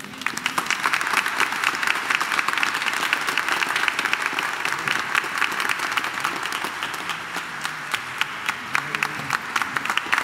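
Audience applauding: many hands clapping in a dense, steady patter that starts all at once as the last piano chord dies away.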